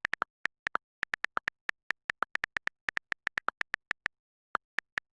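A quick, uneven run of short sharp clicks, about thirty in five seconds, with a short pause near the end before a few more.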